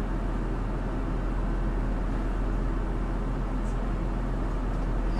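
Diesel railcar's engine idling with a steady low hum, heard inside the driver's cab of the standing train.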